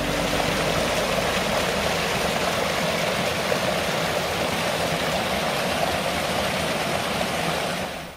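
A steady, even rushing noise with no pitch or rhythm, which cuts off abruptly near the end.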